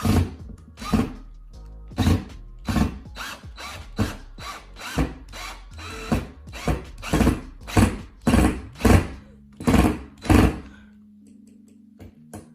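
Power drill run in a quick series of short bursts, about two a second, stopping near the end, as screws are driven in to fix the ceiling fan's mounting bracket.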